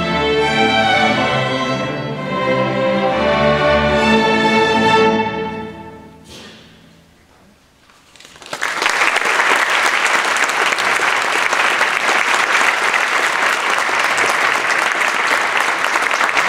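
A string orchestra of violins, cellos and double basses plays its closing chords, which fade away about six seconds in. After a short quiet pause, the audience applauds steadily.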